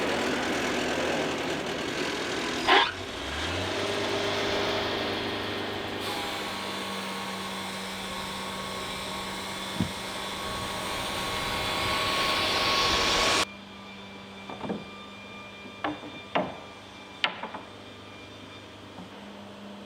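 Wood-Mizer portable band sawmill running and sawing through a pine log, with one sharp knock about three seconds in. The sawing cuts off abruptly after about thirteen seconds, leaving a low hum and a few scattered knocks.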